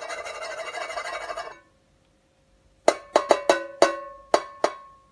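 A small metal bell: a rattling jangle for about a second and a half, then, after a short pause, seven quick strikes whose tone rings on between them.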